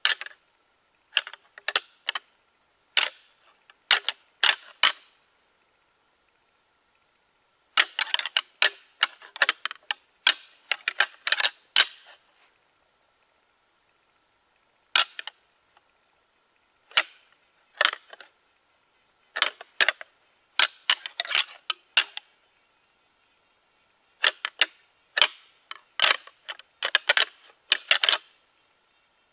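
Antlers rattled together in bursts of sharp clacks and ticks, imitating two whitetail bucks fighting to call a buck in. The bursts come in series a few seconds long with short pauses between them.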